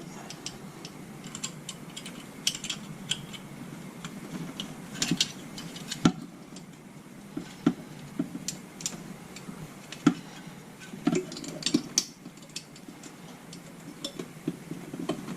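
Irregular small clicks and taps with light rustling as wires are handled and reconnected to a refrigerator's interior light fixture.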